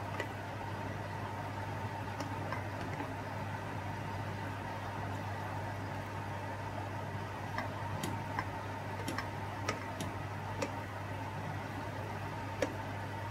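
Plastic pasta server and wooden spatula clicking and tapping against a stainless steel pan as spaghetti in sauce is tossed, the taps scattered and mostly in the second half. A steady hum runs underneath.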